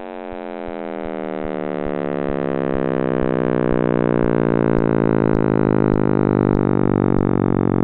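Simulated sound of the Big Bang: a synthetic drone rich in overtones, sliding slowly down in pitch while it grows louder over the first few seconds, then holding steady.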